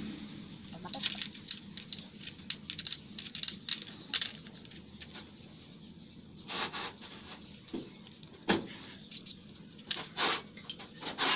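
Small metal clicks, taps and rustles of a jeep carburetor being handled and taken apart by hand, with a few louder short scrapes in the second half.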